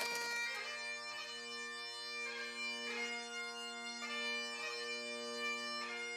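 Bagpipe music: a melody on the chanter over steady, unbroken drones.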